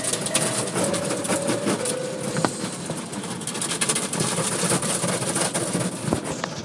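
Automatic car wash heard from inside the car: water spray hissing and cloth strips or brushes scrubbing and slapping across the windshield and body. The hiss thins out near the end.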